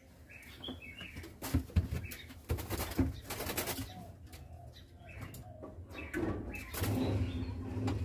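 A caged black-naped oriole fluttering its wings and chirping briefly while its cage clatters with a few knocks as it is carried and hung on a hook. A steady low hum comes in about six seconds in.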